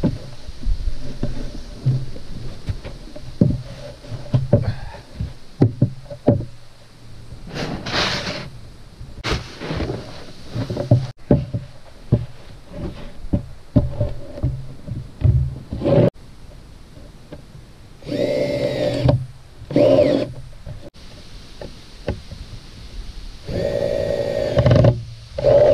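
Knocks and scuffs on a wooden roof deck as tools are handled and set down. A cordless drill whirs in two short runs, about two-thirds of the way in and again near the end, driving screws into the OSB sheathing.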